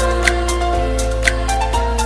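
Background music: held chords that change about once a second, over a light tick that falls about once a second.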